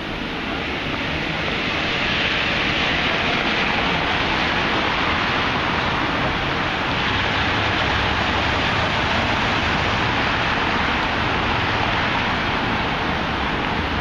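Steady noise of passing street traffic, tyres and engines blending into one even rush that grows a little louder about two seconds in.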